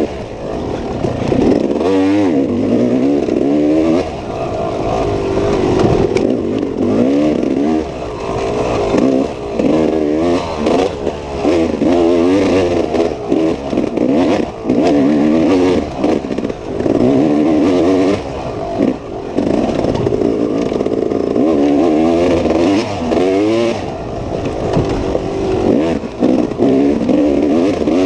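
Dirt bike engine revving hard and easing off over and over, its pitch climbing and dropping back every second or two as the bike is ridden.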